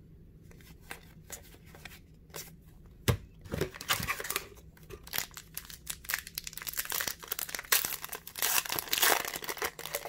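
Foil hockey card pack being torn open and crinkled in the hands. A few light ticks come first, and the crackling tear starts about three seconds in.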